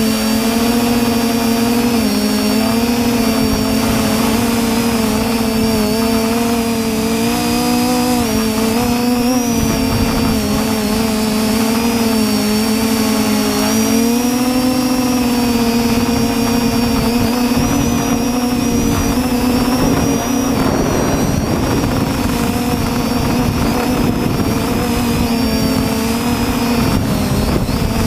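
TBS Discovery quadcopter's brushless motors and propellers buzzing steadily, close to the onboard GoPro, the pitch wavering up and down as the throttle changes in flight.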